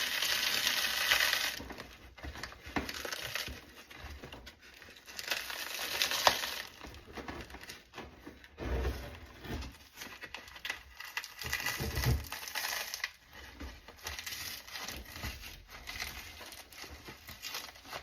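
The backer being peeled and pried off a shot alumina ceramic armor plate by hand: tearing and scraping noises in uneven bursts, with low thumps about nine and twelve seconds in. The adhesive bonding backer to ceramic is holding well.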